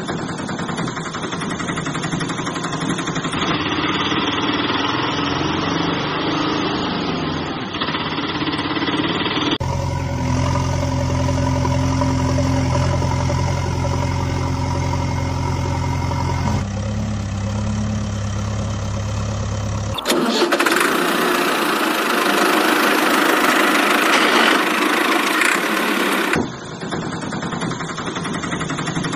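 Vehicle engine sound effects running and idling, made of several different engine recordings spliced together that switch abruptly a few times. One stretch has a steady low hum, and a louder, noisier stretch comes near the end.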